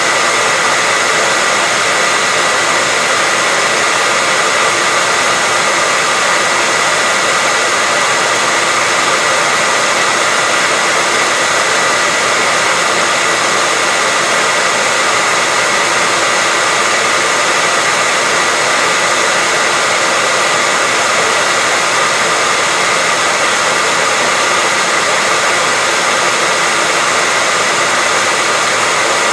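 Hairdryer running continuously at a constant speed: a steady rush of air with a fixed motor whine.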